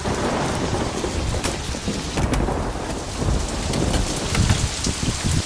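Heavy rain pouring down, with many sharp drop impacts over a steady low rumble.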